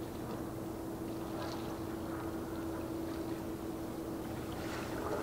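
Steady low hum of ship machinery carrying across the water, one steady tone over a low rumble, with a few short bird calls over it.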